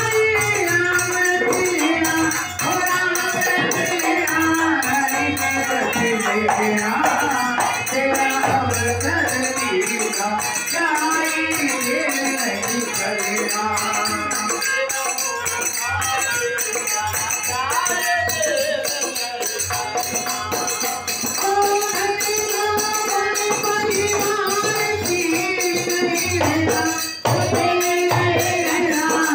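A devotional bhajan: men singing together, led by a singer at a microphone, with a dholak drum and jingling hand percussion keeping a fast, steady rhythm.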